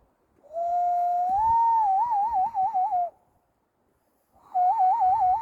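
Hand whistle blown through cupped hands: a pure tone that slides up, then warbles rapidly for about two and a half seconds. After a short pause, a second warbling whistle starts near the end.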